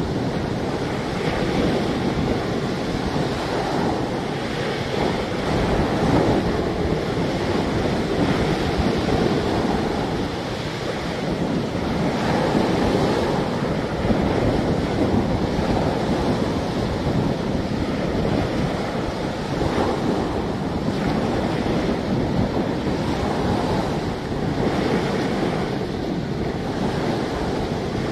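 Small waves breaking and washing up a shingle beach, with wind buffeting the microphone.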